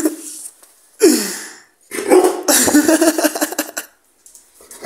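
Pitbull barking at a person it does not recognise: one short bark about a second in, then a longer stretch of rough barking.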